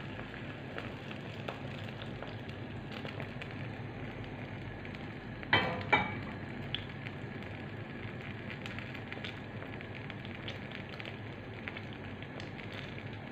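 Oat, banana and egg pancake batter sizzling in a nonstick frying pan, a steady hiss with small crackles. Two sharp knocks come close together a little before halfway.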